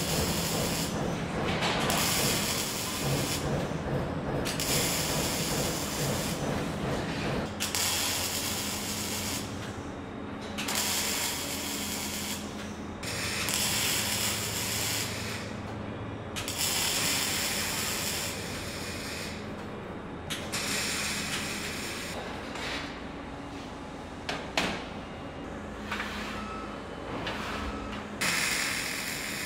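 MIG welding arc crackling in a string of short bursts, about a dozen, each one to three seconds long, as tabs are tack-welded onto square steel tubing. A steady low hum runs underneath.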